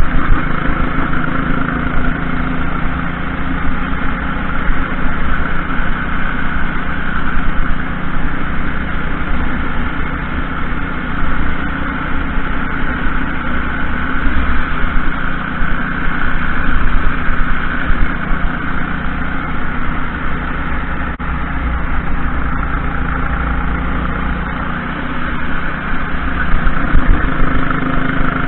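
Junior racing kart's engine running at racing speed, its pitch rising and falling every few seconds as it revs out on the straights and drops back through the corners.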